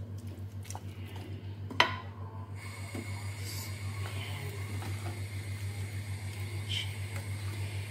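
Wooden spatula stirring chicken in sauce in a stainless steel pot, with one sharp knock of the spatula against the pot about two seconds in, over a steady low pulsing hum; a faint high whine joins a little later.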